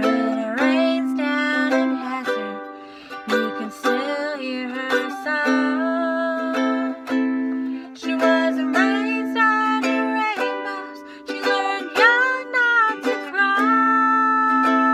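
A woman singing a slow folk ballad while strumming a cigar-box ukulele, holding some notes for a second or two.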